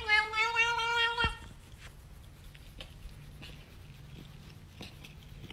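A cat's single long meow, held at a steady pitch for about a second and a half at the start, ending with a faint knock; then quiet room tone.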